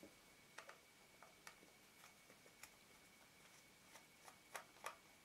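Near silence with faint, irregular small clicks of a JIS #00 crosshead screwdriver working a tiny screw out of the back of an Olympus XA camera; the two loudest clicks come near the end.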